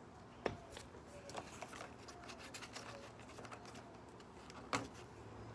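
Hand tools working a drilled-out rivet on a pop-up camper: faint small metal clicks and scraping, with two sharper taps, one about half a second in and one near the end.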